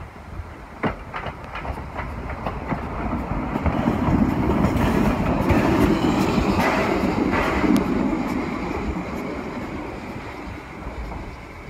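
The Edison, a 4-4-0 steam locomotive, passing close by. Its wheels and running gear click and clank at first, then the rumble and hiss build to their loudest about four to eight seconds in and fade as it moves away.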